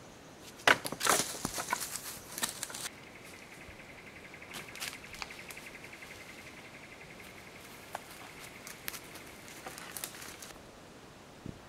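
Dry sticks snapping and crackling in quick, sharp cracks over the first three seconds. A steady, high, rapid trill from an animal then runs for about seven seconds, with a few scattered ticks.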